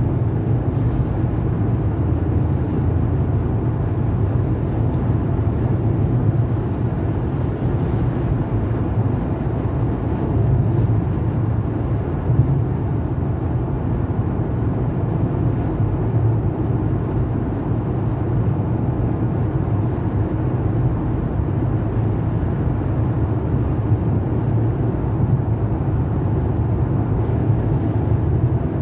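Steady low rumble of road and engine noise inside a car's cabin cruising at motorway speed.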